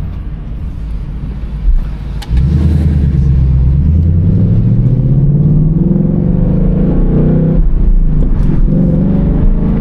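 Ford Mustang GT's 5.0-litre V8 accelerating under throttle: the engine note rises steadily in pitch for about five seconds after the throttle opens around two seconds in, then the revs fall away near the end as for a gear change.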